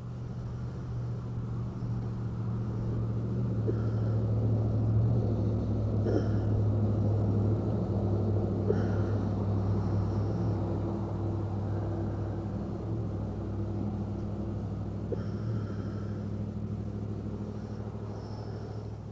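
A motor engine's low, steady hum that swells to its loudest about five to ten seconds in, then slowly fades.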